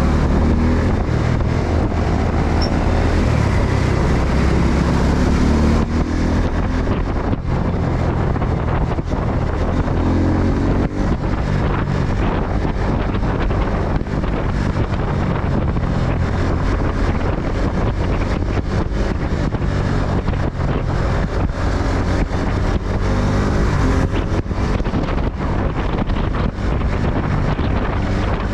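Wind buffeting the microphone on a moving motorcycle, with the Suzuki Gixxer 250's single-cylinder engine running underneath, its pitch rising and falling a few times.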